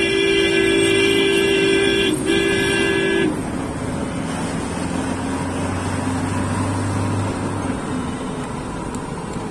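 Car horn sounding twice, a long blast of about two seconds and then a shorter one of about one second, over the car's running engine and road noise heard from inside the cabin.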